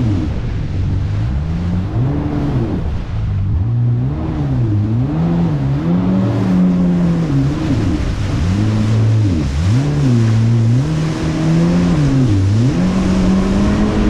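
Jet ski engine revving up and down over and over as the throttle is opened and eased through turns, its pitch rising and falling every second or two, with water spray and wind noise.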